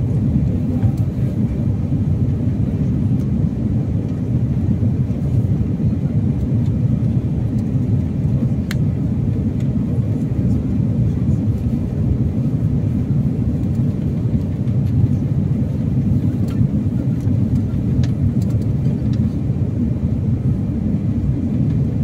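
Steady low rumble inside the cabin of an Airbus A330-300 airliner on final approach.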